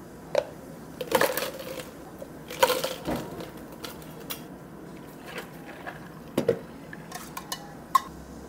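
Ice cubes clattering into tall plastic cups from a metal ice scoop, in two dense bursts about a second and a half apart, followed by scattered single clicks and knocks of ice and cups.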